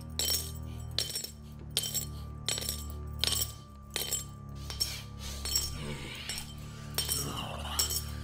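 Film score: a steady low drone under a sharp, glassy clinking tick about every three-quarters of a second.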